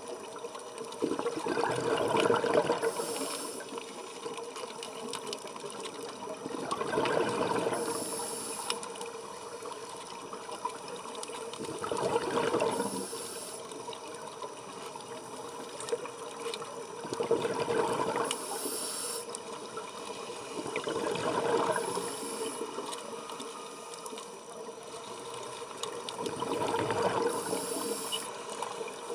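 Scuba diver's regulator breathing underwater: six slow breaths about five seconds apart. Each is a swelling rush of air and bubbles that ends in a brief high hiss.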